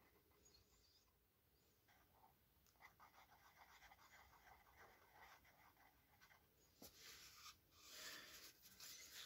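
Faint scratching of a marker drawing on paper, in quick short strokes starting about three seconds in and growing a little louder near the end.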